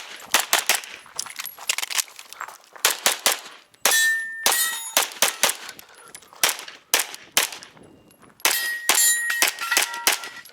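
A rapid string of pistol shots from a Canik Rival 9 mm, with steel targets clanging and ringing as they are hit, loudest ringing about four seconds in and again near the end.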